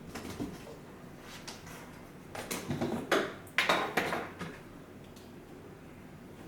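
Clicks and rattles of cables and plastic connectors being handled while the head unit's wiring is hooked up to a 12-volt supply, a few light ticks at first and a busier cluster in the middle.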